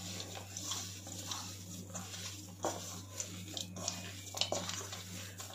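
Hands mixing and kneading crumbly paneer-and-potato kofta dough in a steel bowl: soft, irregular squishing and rubbing with occasional light knocks against the bowl, over a steady low hum.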